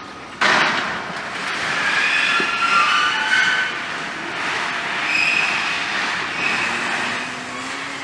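Demolition excavator tearing into sheet metal: a sudden loud crash about half a second in, then metal screeching and squealing in several shifting high pitches.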